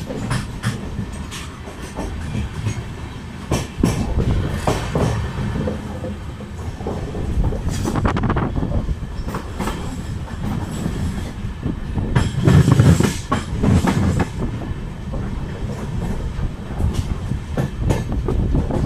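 Passenger train coach running along the track, heard from its open door: a steady rumble of wheels on rail with irregular clicking and clatter as the wheels cross rail joints and points. It grows loudest about two-thirds of the way through.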